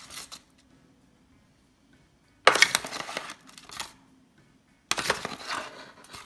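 Slotted metal spoon scraping and scooping roasted broccoli across a disposable aluminium foil baking pan, the foil crinkling: two bouts, one about two and a half seconds in and another about five seconds in, each starting with sharp clicks.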